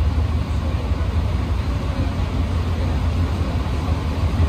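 Cabin noise inside an Alstom NS-93 rubber-tyred metro train running: a steady low rumble and hum with an even hiss above it.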